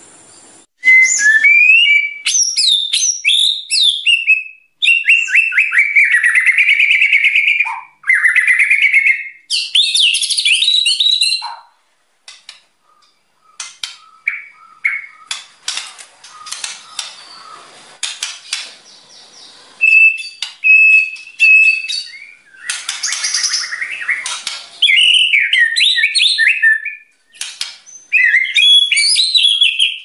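White-rumped shama singing loudly in fast bursts of varied whistled and warbling phrases. A quieter stretch in the middle holds clicks and short single notes before the loud song resumes.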